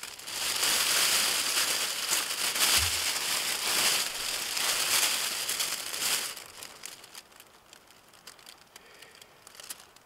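Aluminised survival blanket crinkling and rustling as it is handled for about six seconds, then dying down to faint, scattered crackles.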